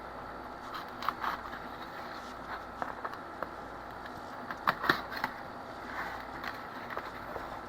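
Cardboard handled and pushed into a hollow plastic blow-mold base: scattered light scrapes and taps, the sharpest a little before halfway, over a steady background hum.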